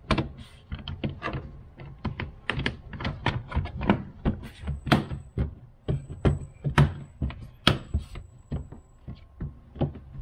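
Hands pressing and patting the Tesla Model 3's plastic cowl vent cover back into place: a rapid, irregular string of taps, clicks and thunks.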